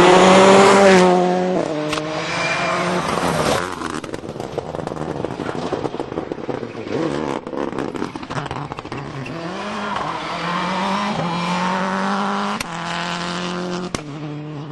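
Rally car engines running hard on a stage. One car is loud at the start and its engine note shifts up and down before dying away after a few seconds. Another engine rises again in the second half, with a few sharp pops or cracks.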